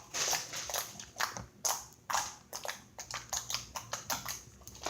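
Fingers poking and squishing fluffy slime, a string of short wet pops and clicks, irregular at first and coming faster in the second half.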